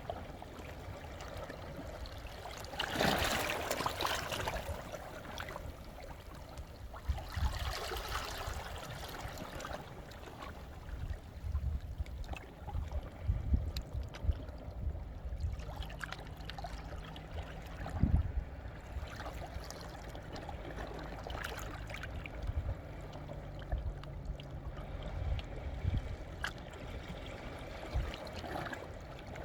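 Small sea waves washing and trickling among Jeju's volcanic basalt shore rocks, with two louder washes a few seconds in and about eight seconds in. Low thuds run throughout.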